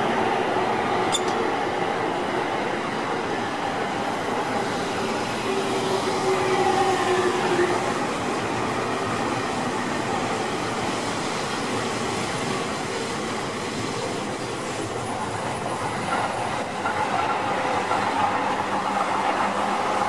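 JR East electric commuter trains passing close by on several tracks: a steady running noise of wheels on rail, with a held whining tone for about two seconds some six seconds in.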